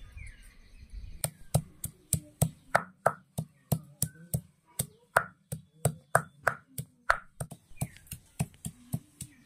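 Food being chopped with a knife: steady, sharp strokes at about three a second, starting a little over a second in.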